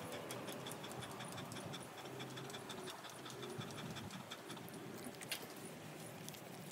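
Faint outdoor ambience with a fast, steady ticking.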